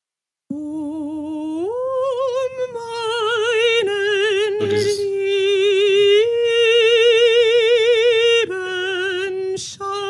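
A mezzo-soprano voice singing an unaccompanied operatic phrase: a few long held notes with wide, even vibrato, stepping up in pitch about a second and a half in, with a short breath near the middle. This is the natural recording, not the synthesized version.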